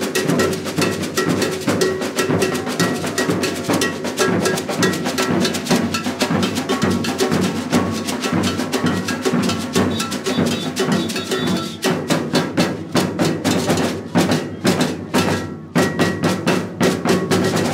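Live percussion ensemble playing a fast rhythm on drums and a beaded gourd shaker (shekere). About twelve seconds in, the dense playing thins to more separate strokes with short breaks.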